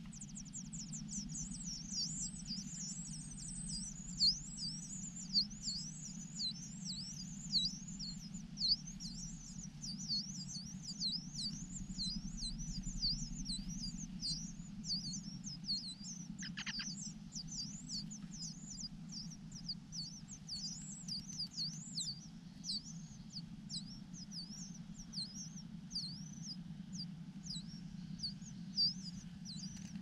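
Large niltava nestlings begging at the nest: an unbroken stream of thin, high chirps that each sweep down and back up, two or three a second.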